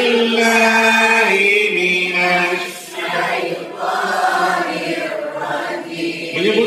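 A room full of people chanting Qur'anic verses together in unison, holding long drawn-out notes that step to a new pitch every second or two, with short breaths between phrases.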